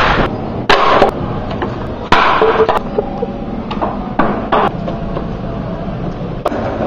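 Skateboards knocking and clacking on stone paving: a run of sharp hits, the loudest about a second in, two seconds in and near the end, with short rough stretches in between.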